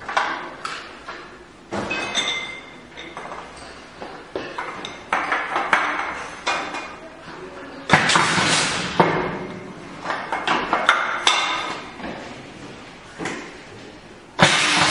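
Metal tin-plate butane cartridge cans clinking and knocking on the steel worktable of a pedal-operated cartridge filling and crimping machine as they are handled. A sudden loud rush of air about eight seconds in, and again near the end, as the machine's heads cycle.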